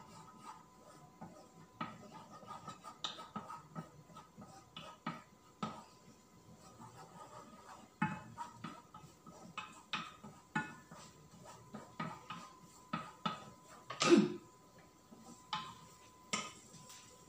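A spoon scraping and tapping in a small stainless steel saucepan as garlic is stirred in oil. The clicks come irregularly, with one louder clatter near the end.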